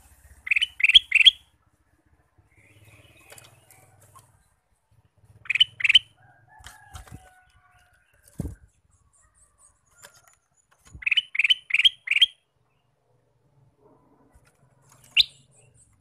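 A male ruby-throated bulbul (kutilang emas) whistles in short bursts of quick, clear, rising notes: three, then two, then four, then a single note near the end. Between the bursts its wings flutter, with a soft thump about halfway through as it moves about its cage.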